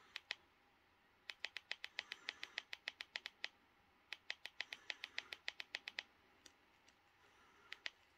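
Rapid clicking of remote-control buttons pressed over and over to scroll through a disc menu: two runs of about six clicks a second, each lasting about two seconds, with a few single clicks before and after.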